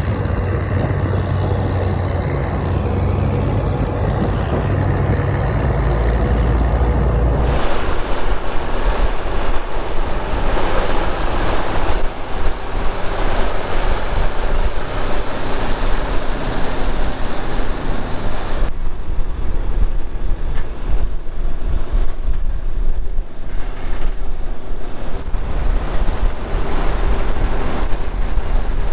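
Farm vehicle engines running and driving, with a heavy low rumble in the first part. The sound changes abruptly twice, about 7 and 18 seconds in, as one machine's noise cuts to another's.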